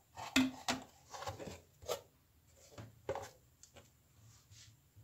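Handling noise from circuit boards being moved about on a wooden table: several soft knocks and rustles in the first couple of seconds, two more around the middle, then only a few faint taps.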